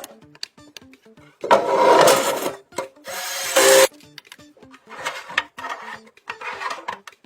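Background music: a beat of short, clipped notes repeating steadily, broken by two loud, noisy swells about a second long, one starting about a second and a half in and another about three seconds in, with softer ones later.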